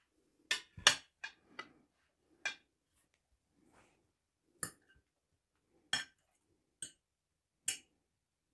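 Metal fork clinking and scraping against a ceramic plate while picking at boiled potatoes: about nine short, sharp clinks at uneven intervals, the loudest about a second in.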